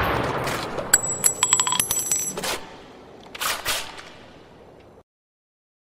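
Edited intro sound effects: a deep boom fading away, then about a second in a rapid run of short bright ringing ticks, followed by two quick whooshes. The sound cuts off abruptly about five seconds in.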